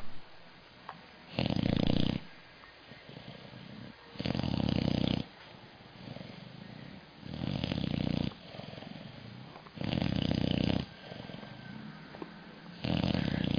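Sleeping pit bull puppy snoring loudly: five heavy snores about every three seconds, with quieter breathing between them.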